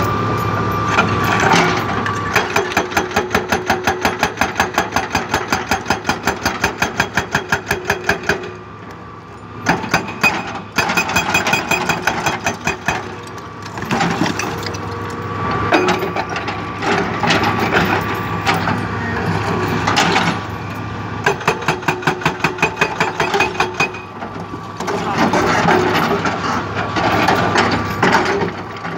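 Hydraulic breaker on a Hitachi ZX200 excavator hammering rock: rapid, evenly spaced strikes in bursts of several seconds with brief pauses, over the steady hum of the excavator's diesel engine.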